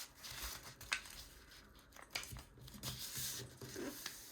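A sheet of printer paper being folded and creased by hand: faint rustling and crinkling with a few sharp little crackles.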